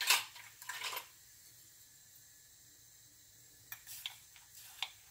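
Soft kitchen handling noises: a couple of brief rustles about a second in, then a few light clicks and scrapes near the end, as a spoon scoops coarse sea salt from its container.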